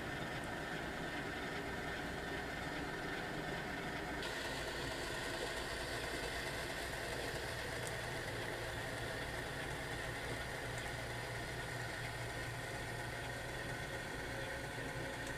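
HO-scale model diesel locomotive and log train running, with a steady engine-like drone. About four seconds in the sound shifts and grows hissier.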